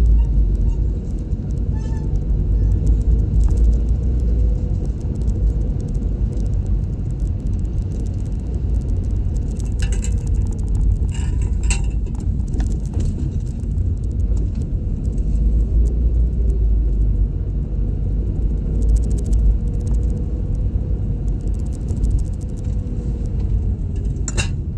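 Steady low road and engine rumble of a car being driven, with a faint engine hum drifting slightly up and down. A few brief clicks come about ten and twelve seconds in and again near the end.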